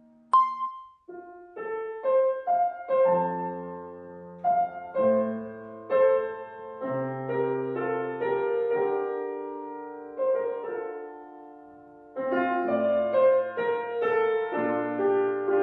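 Solo piano background music, a gentle melody over chords. About a third of a second in there is a single sharp ding with a short ring. It is the loudest moment, and the piano comes in after a brief pause.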